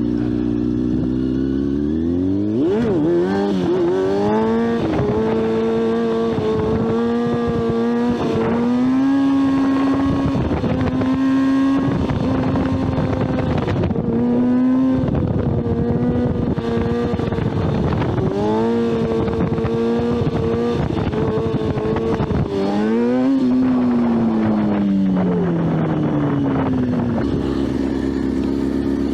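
Motorcycle engine revving up from idle about two seconds in and held at high revs for a long stretch, with small rises and dips in pitch as the throttle is worked. Near the end the revs fall away in a long downward glide and settle back to a steady idle.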